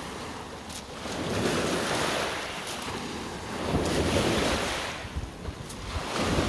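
Lake Ontario waves breaking on the shore, the wash of surf swelling and falling back about every two to three seconds. Wind buffets the microphone with a low rumble.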